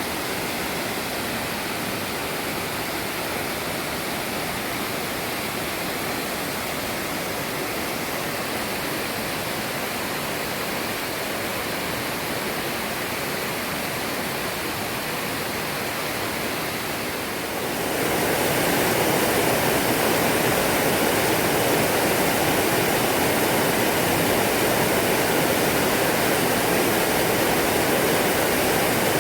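Waterfall rushing steadily, a wide even hiss of falling water that suddenly gets louder about two-thirds of the way through.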